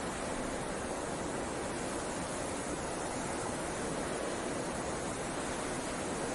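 Snowstorm wind heard from inside a wooden cabin: a steady, even rush with no gusts or breaks.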